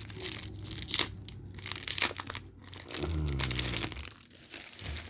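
Foil wrapper of a Magic: The Gathering Kaldheim set booster pack being crinkled and torn open by hand, with a brief low hum about three seconds in.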